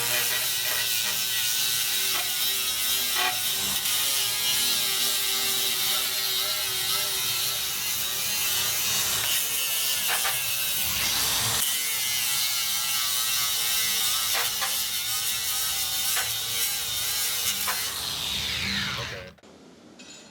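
Angle grinder with a 36-grit fibre sanding disc grinding down a steel weld: a loud, steady hiss and whine of abrasive on metal. Near the end the pitch falls as the grinder winds down, and the sound then stops suddenly.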